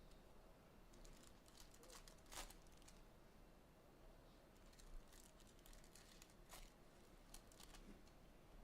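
Faint rustling, crinkling and scattered soft clicks of Topps Chrome trading card boxes and foil packs being handled and opened, over near silence.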